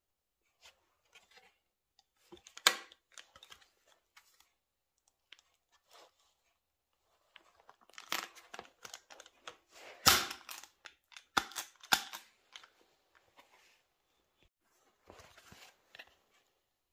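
Hard plastic engine cooling shroud of a Honda Dio scooter being handled and flexed: scattered plastic scrapes, creaks and clicks, with a sharp knock a little over two seconds in and a cluster of louder knocks and scrapes in the middle.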